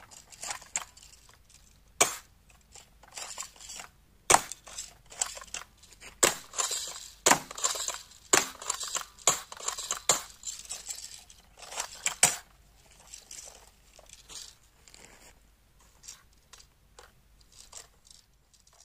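Cheap plastic MP40-style toy BB gun being cocked by hand and fired over and over: a sharp snap about every two seconds, with plastic clacking and rattling from the cocking action between shots. In the last few seconds only fainter handling clicks are heard.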